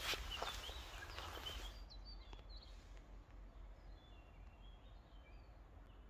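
Footsteps on dry leaf litter for about the first two seconds, with a few short bird chirps. Then the sound drops suddenly to faint birdsong, scattered high chirps, over a low background rumble.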